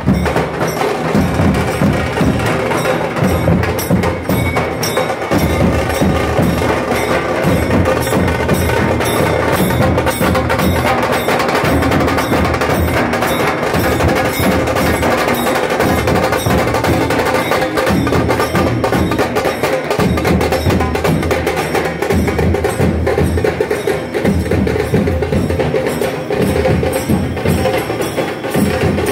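Dhol-tasha drumming: large barrel dhols beaten with sticks give deep, driving beats under the sharp, rapid strokes of a small tasha drum, loud and continuous with no break.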